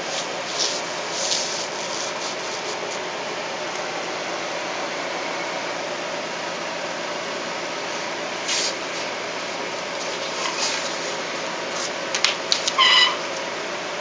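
Steady background hiss of room ventilation, with a few short rustles and, near the end, one brief high squeak.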